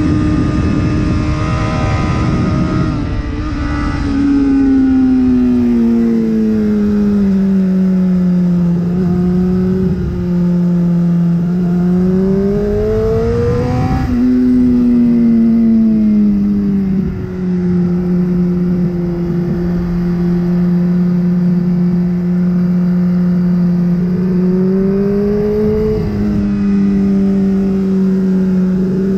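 Honda CBR600RR inline-four sport bike engine running hard on track. Its pitch slides slowly down through the first ten seconds, climbs briefly around the middle, falls again and holds steady for several seconds, then rises near the end, over a steady rush of wind.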